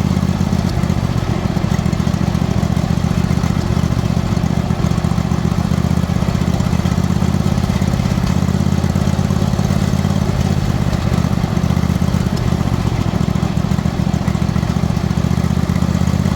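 22-horsepower Ariens riding mower engine running steadily at a constant speed, freshly fitted with a new carburetor, fuel pump and fuel filter.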